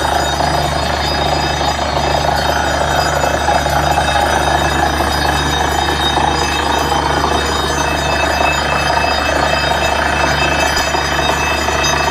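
Truck-mounted borewell drilling rig running under load while drilling: a loud, steady mechanical drone with thin high whining tones and an even pulsing beat, as wet rock cuttings and water are blown out of the bore.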